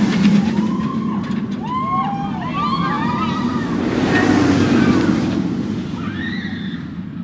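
Steel roller coaster train of Thunderbird, a Bolliger & Mabillard wing coaster, rushing past on its track with a low roar that is loudest about four seconds in. Riders scream over it in a cluster of rising-and-falling shrieks early on the pass and again near the end.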